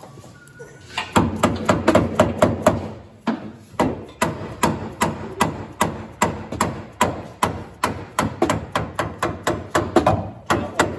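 Rapid hammer blows, about four a second, with a short pause about three seconds in: a new rear leaf-spring shackle being driven into place on a pickup's suspension.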